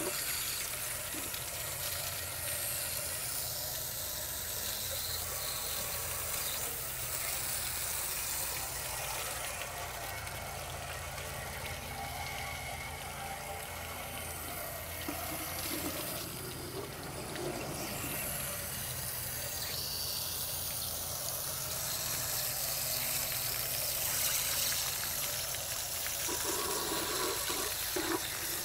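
Water gushing and splashing out of an RV water heater's open anode-rod drain port while a tank flush wand on a garden hose sprays inside the tank, washing out built-up calcium and lime sediment. The sound of running water is steady throughout.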